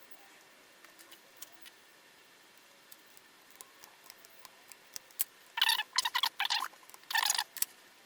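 Faint scattered clicks while the laptop is handled, then from about halfway a quick run of short squeaks and scrapes as its parts are put back together.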